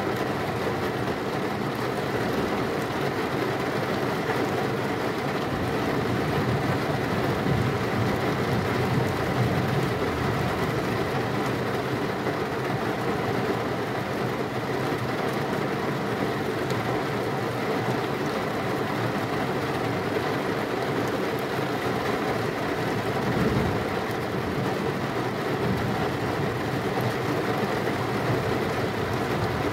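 Heavy rain falling steadily, with thunder rumbling low underneath; the rumble swells louder about a quarter of the way in and again briefly later on.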